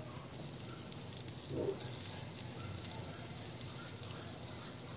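Butter melting and sizzling in a hot nonstick wok: a steady hiss with scattered small crackles.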